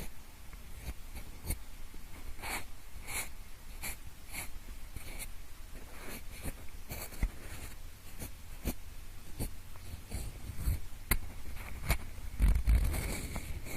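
Pencil scratching and tapping close to the microphone in the style of ear-cleaning ASMR: short, uneven scratches and ticks, one or two a second, with a longer, louder stretch of scraping near the end.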